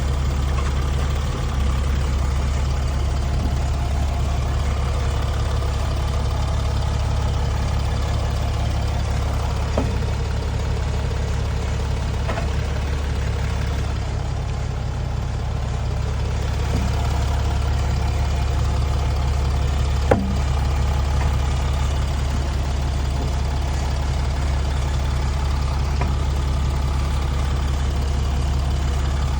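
Steady low drone of a 2014 Mercedes ML350, broken by a few sharp single knocks, the loudest about twenty seconds in. The knocking comes from a wheel as the car turns, which the owner takes for a bad wheel bearing.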